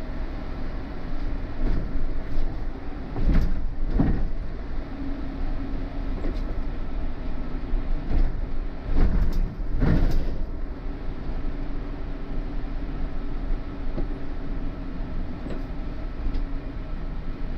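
City bus in motion: steady engine and road rumble with a low hum, and a few louder knocks and rattles around four seconds in and again around ten seconds in.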